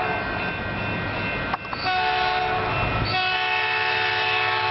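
Express commuter train's locomotive horn sounding several notes at once in two long blasts, with a short break about a second and a half in, over the rumble of the oncoming train.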